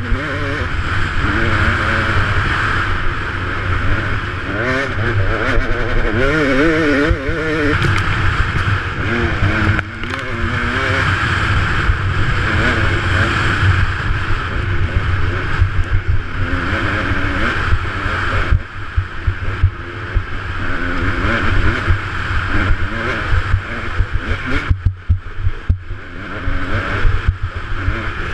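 KTM 200 XC-W two-stroke single-cylinder dirt bike engine running at speed, revving up and down with the throttle, under heavy wind rumble on a helmet-mounted microphone. The revs waver quickly about five to seven seconds in, and the engine note drops off briefly around ten seconds, again a little after eighteen seconds, and near twenty-five seconds.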